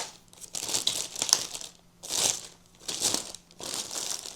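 Packaging crinkling and rustling in several irregular bursts as the product is unwrapped by hand.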